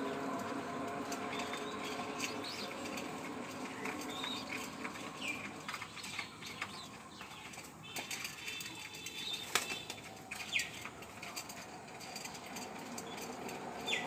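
Flock of domestic pigeons feeding together on the ground: wings flapping now and then as they jostle, with pecking clicks and short high bird chirps.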